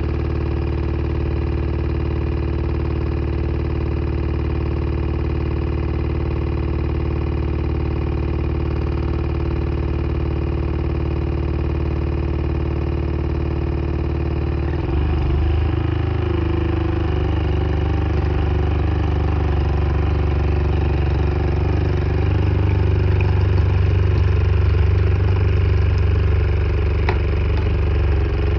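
Water flosser's pump motor running with a steady pulsing hum; about halfway through it turns louder and rougher.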